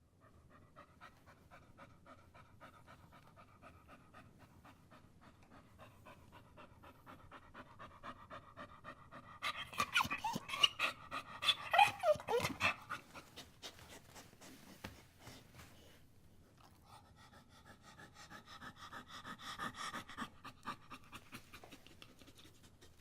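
A dog panting fast and whining. Midway the whines grow louder into high whimpers that slide down in pitch, then fade back to panting with softer whining near the end.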